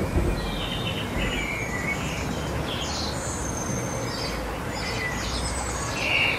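Small songbirds chirping and twittering in short, scattered calls over a steady outdoor hiss and low rumble, with one louder chirp near the end.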